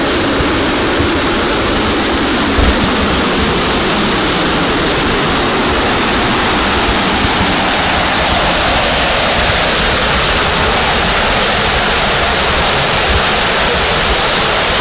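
Fast river water rushing and churning into white water, a loud steady rush that grows a little brighter about halfway through.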